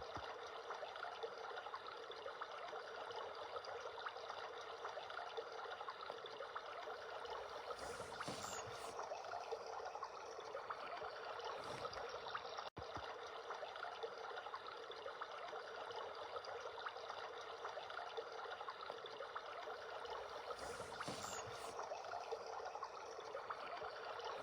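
A recorded running-stream nature sound played through the Foryond wake-up light alarm clock's small speaker: a faint, steady rushing hiss of water.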